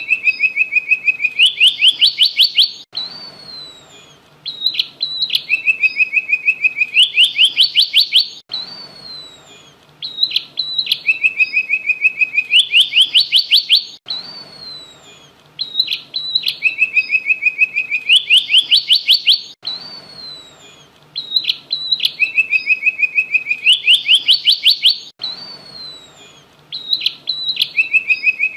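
Emprit (munia) singing a prenjak-style (prinia) song: a short high note, a level trill about a second long, then a fast run of rising notes. The same phrase repeats about every five and a half seconds, five times over.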